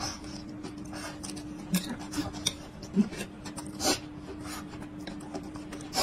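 Close-miked eating sounds: chewing and mouth noises, with chopsticks clicking and scraping against a ceramic plate as many short sharp clicks. A steady low hum runs underneath.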